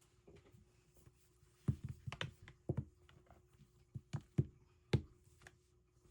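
A scattered series of light knocks and clicks, like objects being handled, over a faint steady hum.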